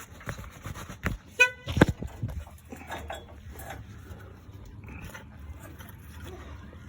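Metal knocks and clanks as an aftermarket exhaust pipe section is pushed into place on a Subaru Impreza. There is a short squeak about a second and a half in, and a run of sharp knocks in the first couple of seconds before it settles to faint rustling and clicks.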